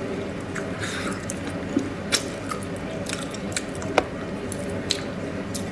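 Wet mouth sounds of someone eating braised pig's trotters: lip smacking and sucking sauce off the fingers, with a few sharp clicks, the loudest about four seconds in.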